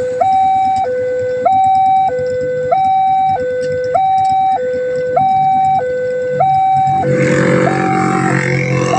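Railway level-crossing warning siren sounding a two-tone alarm that switches between a high and a low pitch about every half second. About seven seconds in, a louder rumbling noise joins it.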